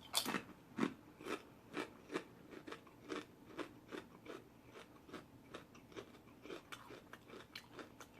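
Close-miked chewing of a mouthful of Subway rotisserie chicken sub: a steady run of soft wet mouth clicks, about two to three a second, a little louder near the start and fading toward the end.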